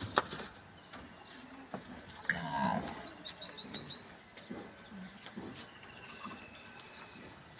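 A small bird singing a quick run of about eight short, high chirps, starting about two seconds in and lasting under two seconds. A single sharp click sounds just at the start.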